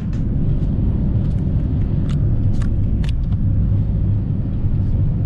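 Motorhome driving along a paved road, heard from inside the cab: steady low engine and road rumble, with a few faint ticks about two to three seconds in.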